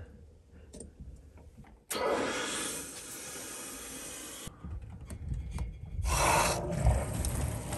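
Water hissing through the plumbing as the supply is turned back on and the water heater refills: a steady hiss starting about two seconds in that stops suddenly after about two and a half seconds, then a shorter burst of hiss near the end.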